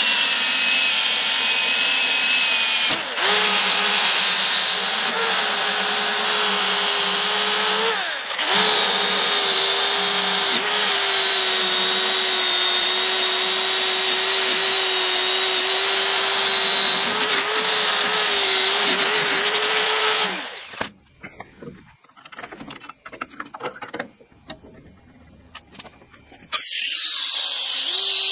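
Cordless drill spinning a wire wheel brush against a steel pedal-assembly part, stripping old paint and rust to bare metal: a steady motor whine with scratchy brushing, easing off briefly twice. It stops about 20 seconds in, leaving only faint clicks for several seconds, then spins up again near the end.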